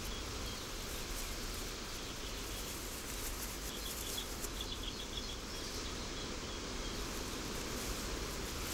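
Faint outdoor ambience: a steady hiss with a short run of faint, high chirps about four seconds in.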